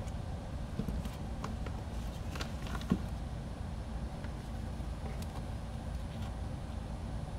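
Steady low background hum, with a few faint clicks and one sharper knock about three seconds in, as things are handled on a workbench.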